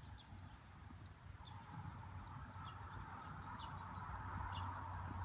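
Faint outdoor ambience: short high chirps, about one a second, over a low steady hum and a hiss that slowly grows louder.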